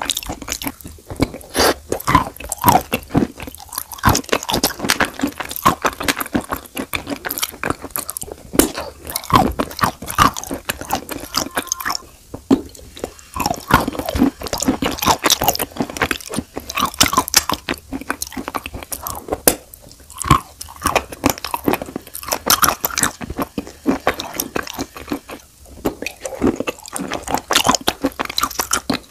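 Close-miked crunching and chewing of chalk and Uzbek blue clay: a dense run of crisp crunches as pieces are bitten and ground between the teeth, with a few brief lulls.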